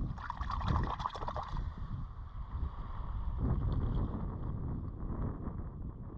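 Wind rumbling on the microphone over seawater sloshing on a rocky shore. In the first second or so, small splashes and trickling come from a hand stirring a rock pool. The sound fades out near the end.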